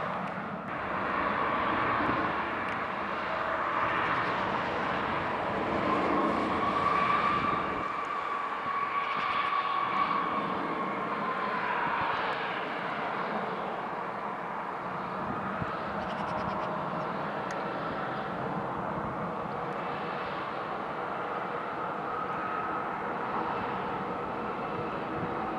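Jet airliner engines whining at low thrust as the plane taxis, swelling to their loudest about halfway through and then easing off to a steadier, quieter whine.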